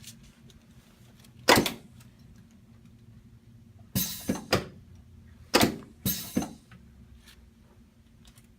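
Head piece of a pneumatic chiropractic drop table knocking down sharply under quick thrusts to the upper neck: one knock, then a quick run of three, then three more.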